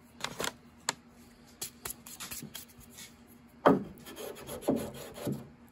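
Irregular rubbing and scraping strokes on the finished wood of a piano leg, with a few knocks; the loudest knock comes about two-thirds of the way in.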